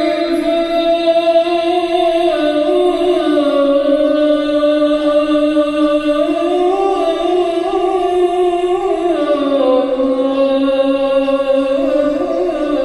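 A single voice chanting long, drawn-out notes that slide slowly up and down in pitch, with hardly a break.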